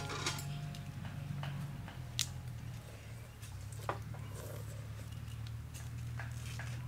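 Metal spoon clinking against a ceramic plate and bowl while rice is scooped and eaten: scattered light clicks, the sharpest about two seconds in, with a brief ring at the start. A low steady hum runs underneath.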